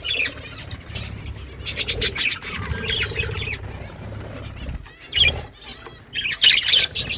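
Small pet birds, budgies by the video's tags, chirping and chattering in rapid bursts with short pauses; the loudest burst comes near the end.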